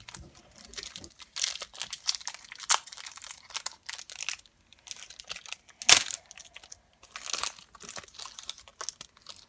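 Crinkling and rustling of a foil trading-card pack wrapper and cards being handled, with a sharp tap about six seconds in.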